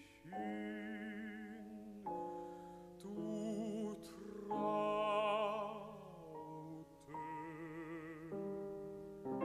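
Baritone voice singing a slow phrase of a German art song, with long held notes and wide vibrato, over soft piano accompaniment.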